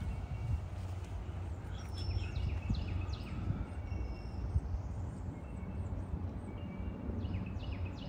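Woodland birds calling: runs of quick, high, falling notes about two seconds in and again near the end, with a few short steady high notes between, over a steady low rumble.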